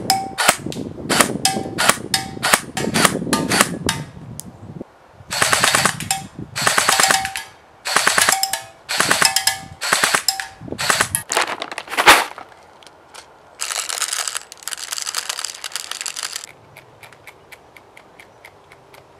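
Ares AM015 Honey Badger airsoft electric rifle (AEG) firing: a quick run of shots, then a string of short rapid-fire bursts, each about a second or less, with brief pauses between them. Near the end the shooting stops and only faint regular ticking is left.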